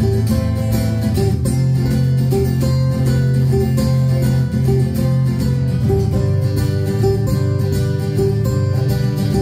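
Instrumental intro of an upbeat party song, with plucked strings over a steady beat and no vocals.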